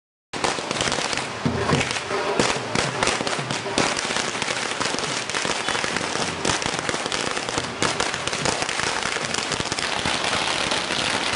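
Firecrackers going off on the road in a dense, continuous crackle of rapid bangs, starting suddenly about a third of a second in.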